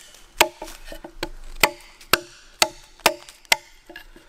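Gransfors Small Forest Axe chopping waste off the end of a cleft ash stick resting on a log: a steady run of short, sharp cuts into the wood, about two a second.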